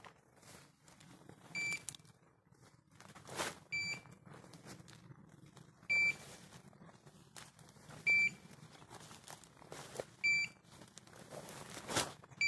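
A hunting dog's beeper collar sounding one short, high beep about every two seconds, over the rustle and crackle of footsteps through forest grass and brush.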